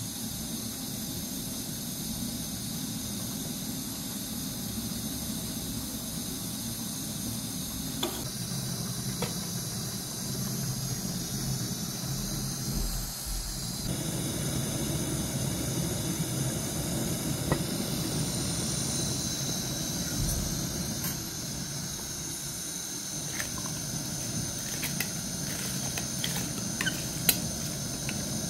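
Water boiling in pots, giving off a steady steam hiss with a high, slightly wavering whine over it, and a few light clicks of utensils in the second half.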